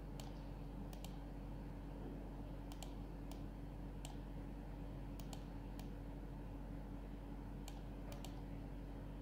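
Computer mouse buttons clicking, scattered sharp clicks, some in quick pairs, as shapes are selected and dragged into place in a drawing program. A steady low hum runs underneath.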